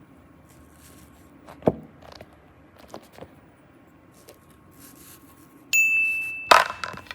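Faint scattered clicks and taps, then a single bright ding held for under a second near the end, followed by a louder noisy rustle.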